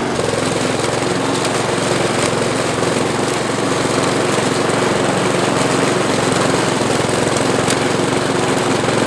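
Walk-behind rotary lawn mower's small petrol engine running steadily while the mower is pushed uphill, cutting grass.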